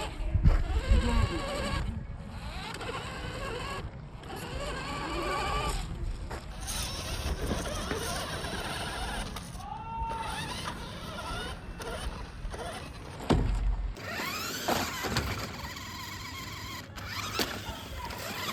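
Electric RC monster truck motor whining, its pitch rising and falling as it accelerates and slows, over tyre and gravel noise, in several short clips that cut off abruptly. A heavy thud comes about half a second in and another about 13 seconds in, typical of the truck landing or tumbling.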